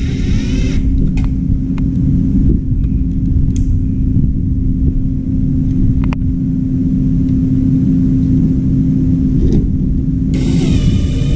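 A steady low mechanical hum and rumble, with a few light clicks and a short rasping noise at the start and again near the end.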